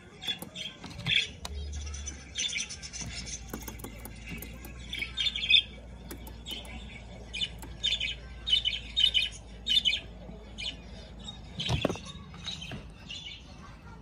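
Budgerigar chirping and chattering in quick clusters of short, high calls. A single sharp knock about twelve seconds in.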